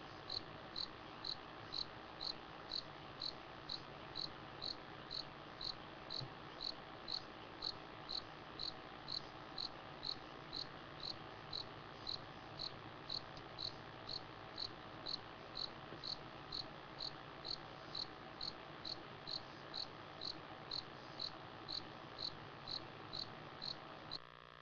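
A cricket chirping steadily, about two short high chirps a second, over a steady hiss. The chirping stops suddenly near the end.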